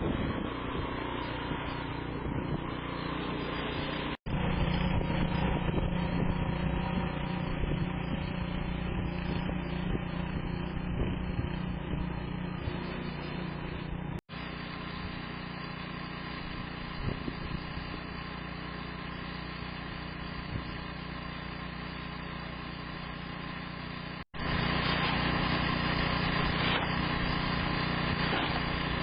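An engine running steadily. The sound cuts out abruptly for an instant three times, about ten seconds apart.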